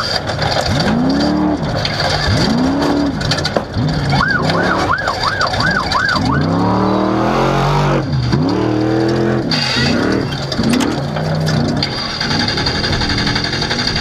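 Off-road race truck's engine revving up and down over and over as it is driven hard over rough desert dirt, heard from on board with rattle and road noise. A quick high warbling tone sounds for a couple of seconds about a third of the way in.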